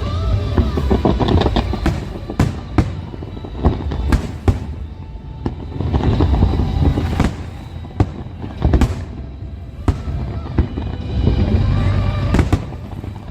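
Aerial fireworks shells bursting in quick, irregular succession, sharp bangs over a continuous low rumble, with louder clusters near the start, about halfway through and near the end. Music plays underneath.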